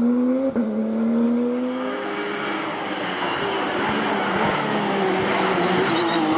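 Porsche race car engine pulling hard under acceleration, its pitch rising steadily for about two seconds with a brief break about half a second in. After that the sound turns rougher and noisier over a lower, steadier engine tone.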